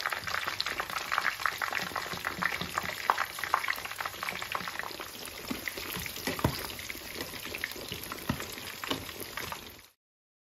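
Panko-breaded veal schnitzel shallow-frying in hot rapeseed oil: a dense sizzling crackle with frequent pops, getting a little softer as it goes, then cutting off suddenly near the end.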